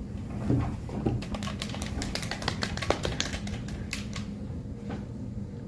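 Handling noise from a handheld microphone as it changes hands: a quick run of small clicks and knocks, thickest between about one and a half and three seconds in, with a few more later, over a steady low hum.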